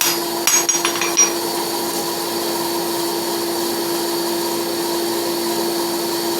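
A few ringing hammer blows on hot steel at the anvil in the first second or so, then a steady motor hum.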